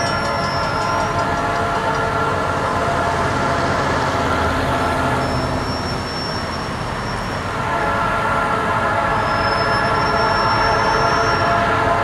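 Norfolk Southern freight locomotive's air horn blowing a long, sustained chord for an approaching train, weakening for a few seconds about halfway through and then coming back strong. Wind rumbles on the microphone underneath.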